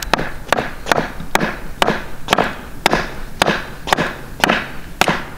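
Hatchet chopping a stick of firewood into kindling: a steady run of sharp wooden knocks, about two strikes a second.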